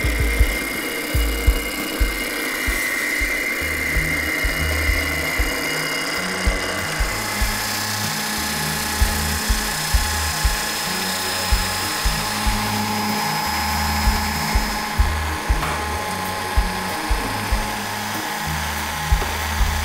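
Background music with a steady beat, and under it the whine of an electric round-knife cloth cutter running as it slices through layered shirt fabric.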